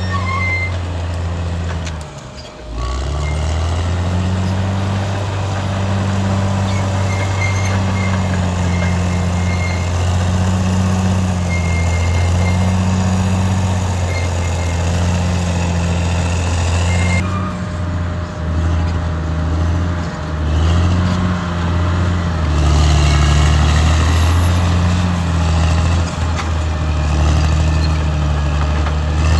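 Caterpillar D6R XL bulldozer's diesel engine working under load, its note rising and falling as the machine pushes. The engine dips briefly about two and a half seconds in and runs louder over the last several seconds.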